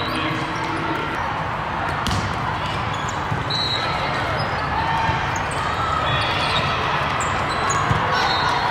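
Echoing din of a busy indoor volleyball tournament hall: volleyballs being hit and bouncing on many courts, with a sharp hit about two seconds in, over a steady murmur of distant voices.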